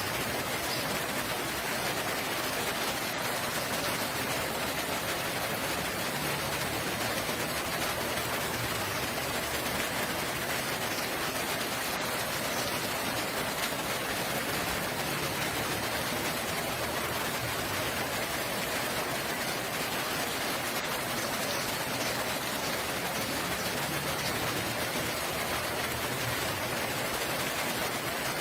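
Steady rainfall, an even hiss of rain without let-up.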